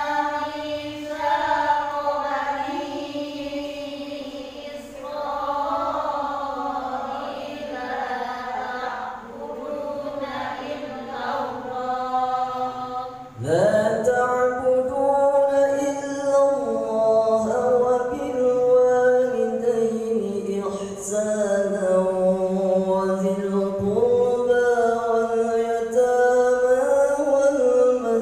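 A man recites the Qur'an in the melodic tilawah style, holding long notes that bend and slide between pitches. About 13 seconds in he pauses briefly, then starts a new, louder phrase with a rising slide.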